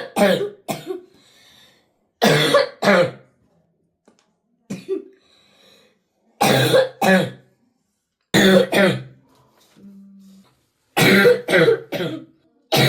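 A 12-year-old boy's chronic coughing attack: harsh coughs in short bouts of two to four, repeating every couple of seconds. It is one of the fits he has had for eight years, for which doctors have found no diagnosis.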